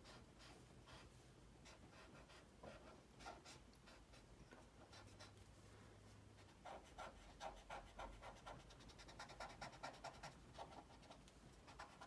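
Faint scratching of an Artify marker's tip stroking across sketchbook paper in quick, repeated shading strokes, which grow busier about seven seconds in.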